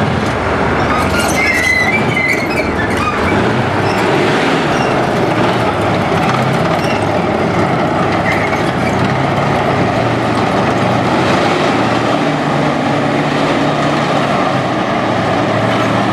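T-72 tank on the move: its V12 diesel engine running and its steel tracks running over paving, with a few short high squeals about two seconds in and again midway.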